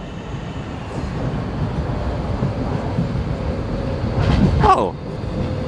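Docklands Light Railway B07 train arriving at the platform: a rumble of wheels on the track that grows louder, then a whine that falls in pitch and holds steady near the end.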